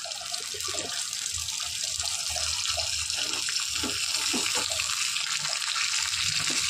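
Ginger-garlic paste, dried red chillies and curry leaves sizzling in hot oil in a small aluminium tempering (tadka) pan: a steady frying hiss with scattered crackles that slowly gets louder.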